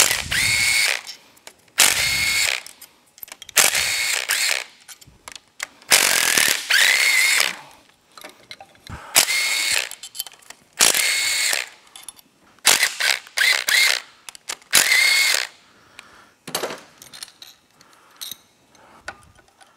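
Cordless drill spinning out the camshaft bearing-cap bolts on a Polaris RZR 900 XP cylinder head, in about eight short high-pitched whining runs of about a second each. Near the end the runs give way to light metal clicks of parts being handled.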